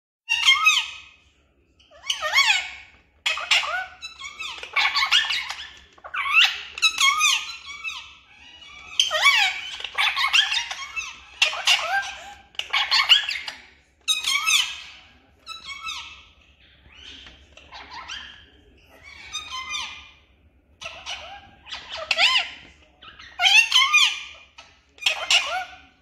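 Indian ringneck parakeets chattering and squawking to each other in short, loud bursts, one every second or two, each a quick run of warbling, bending calls.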